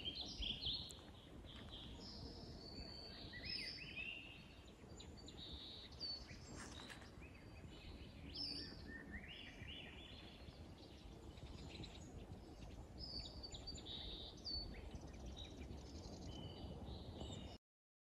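Several songbirds singing faintly, with short overlapping phrases from different birds, over a low steady background rumble. The sound cuts off suddenly near the end.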